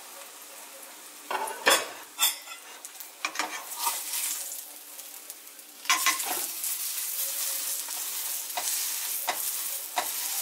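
Cauliflower grilled cheese frying in butter in a pan, a steady sizzle with a few sharp knocks and scrapes of a utensil or lid against the pan between about one and four seconds in. The sizzle grows louder about six seconds in.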